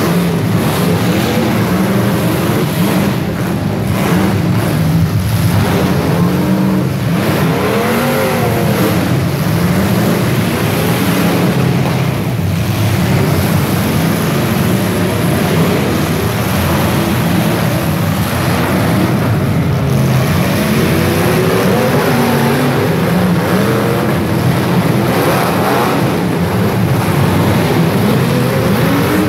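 Many demolition derby cars' engines running at once, loud and continuous, with pitches rising and falling as drivers rev them.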